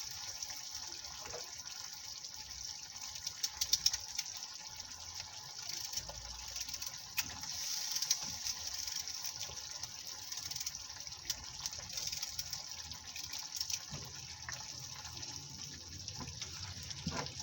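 A knife cutting turnips into pieces, scattered sharp clicks, over a steady high hiss.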